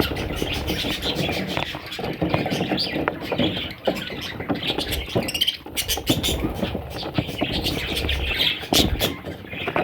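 Parrots chattering and squawking continuously, with many sharp clicks scattered through.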